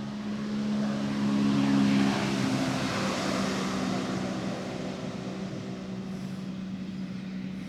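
A couple of big jet skis running flat out past on the river, their engines droning. The drone is loudest about two seconds in, where the pitch drops a little as they go by, then carries on steady and somewhat quieter.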